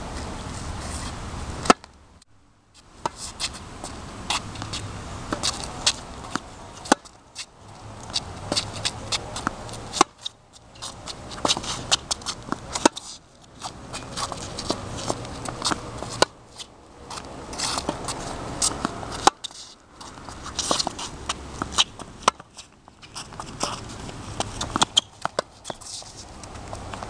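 Tennis rally on a hard court: many sharp pops of the ball struck off racket strings and bouncing on the court, over a steady background noise, with a few brief drop-outs where the recording cuts.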